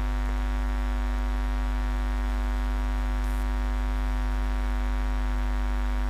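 Steady electrical mains hum with a ladder of evenly spaced overtones, strongest at the bottom, picked up in the recording chain.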